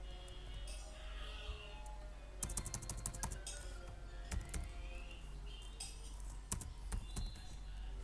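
Computer keyboard typing in quick bursts of keystrokes, with faint music playing in the background.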